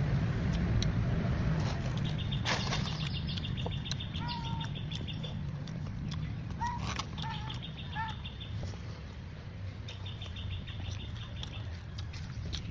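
Short bird chirps, about four, and a repeated fast high trill over a steady low rumble of traffic.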